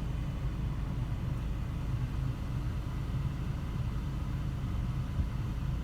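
Car engine idling: a steady low rumble with no change in level.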